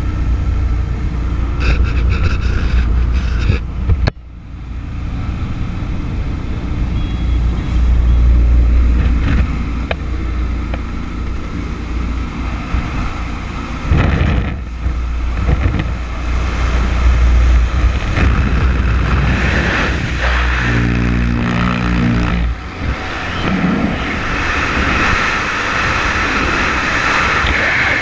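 Aircraft engine and rushing wind in a small jump plane's cabin with the door open, then steady wind noise over the camera in freefall after the jump, about three quarters of the way through.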